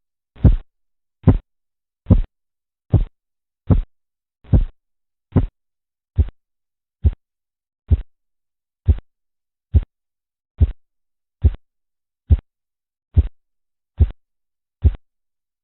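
Korotkoff sounds: the pulse in the arm's artery heard through a stethoscope under a blood-pressure cuff, as single dull taps that come evenly, a little more than once a second, at about 70 a minute, all equally strong.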